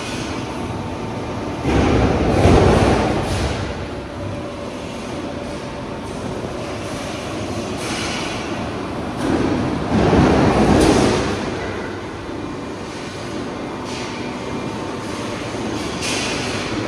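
Guimadira GHE-630 guillotine shear running, with a steady machine hum. A louder surge comes about every eight seconds, each lasting a second or two, as the shear cycles through its strokes.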